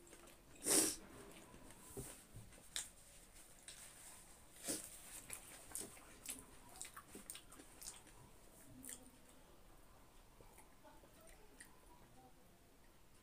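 Close-miked eating sounds: chewing, with scattered short wet clicks and mouth sounds as food is eaten by hand. The loudest is a brief mouth sound about a second in, with another just before five seconds.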